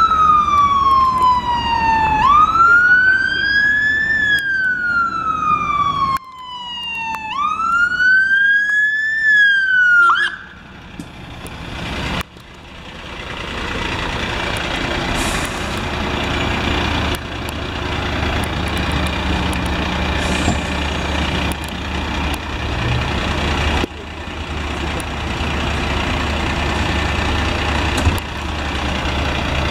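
Emergency vehicle siren wailing with a slow rise and fall in pitch, cutting off about ten seconds in. A London Fire Brigade fire engine's diesel engine follows, running steadily as the truck drives slowly past close by.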